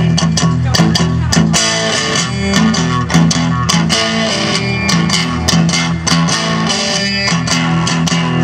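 Live blues band playing an instrumental intro: electric guitar leading over a bass line and drums.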